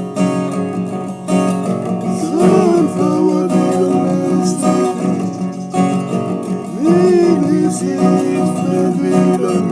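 Music with a strummed acoustic guitar and a singing voice; sung phrases rise and fall about two and a half seconds in and again around seven seconds.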